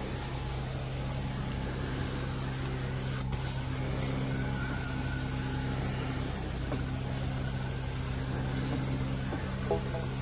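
Carpet-cleaning machine running with a steady hum while a pressure spray wand hisses cleaning solution onto stair carpet.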